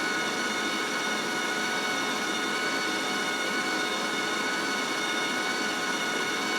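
Wire feed motor of an Azzuno MIG250F welder running steadily with a high whine, pushing 0.8 wire through the gun's liner toward the tip.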